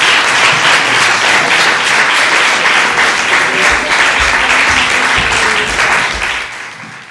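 Lecture-hall audience applauding, a dense steady clapping that fades out near the end.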